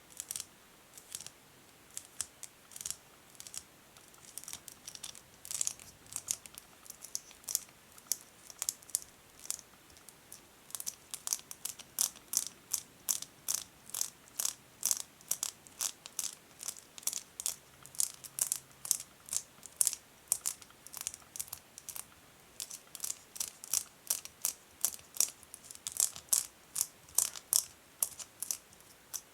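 Natural fingernails tapping and crinkling a tiny plastic bag around a lens case: quick, crisp clicks, sparse at first and coming faster, several a second, from about a third of the way in.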